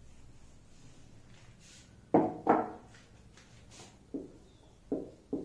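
Faint strokes of a marker on a whiteboard, with a man's short voiced sounds: two loud ones about two seconds in, then a few softer ones near the end.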